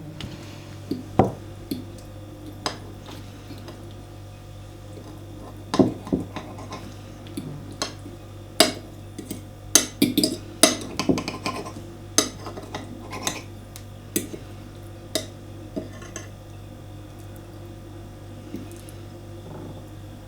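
Dishes and cutlery clinking: irregular sharp clinks and taps, busiest in the middle stretch, over a steady low hum.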